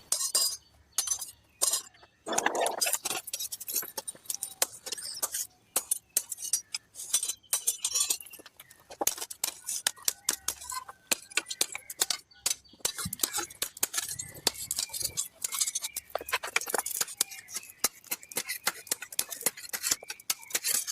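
Many sharp metallic clinks and taps in quick, irregular succession, as steel is struck and worked.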